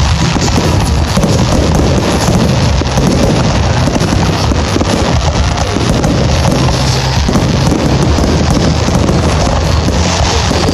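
Fireworks going off in a dense, continuous barrage of crackling and bursts, loud and unbroken, with music mixed in.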